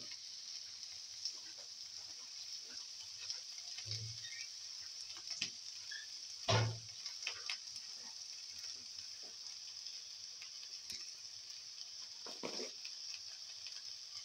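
Tomato pieces and chili flakes sizzling in oil in a frying pan: a steady high hiss with scattered small crackles, and a few short louder knocks, the loudest about six and a half seconds in.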